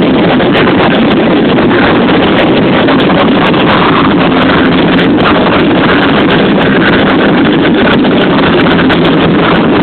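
A live band playing loudly, picked up by an overloaded phone microphone, so the music comes through as a constant, dense, distorted roar.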